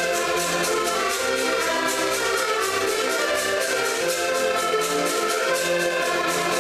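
Several diatonic button accordions playing a lively folk tune together, with a steady beat of short strokes at about four a second.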